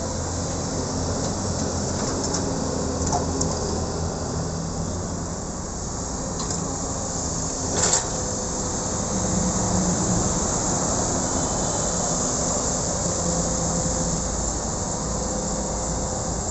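Doosan wheeled excavator's diesel engine running steadily under load as the machine digs and swings its boom, with a sharp clank about halfway through.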